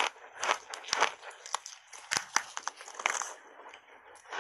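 Big bites of block ice coated in matcha powder being crunched and chewed: an irregular run of sharp, crisp crunches, several a second, with the loudest cracks near the start and about a second in.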